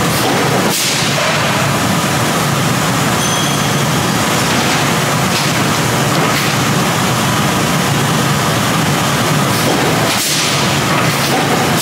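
Steady, dense machinery noise of a robotic upset forging line running, with a couple of brief sharper sounds about a second in and near the end.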